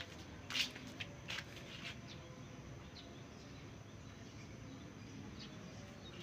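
Three footsteps crunching on gravel, about two-thirds of a second apart, in the first two seconds. After that only a faint, steady outdoor background noise.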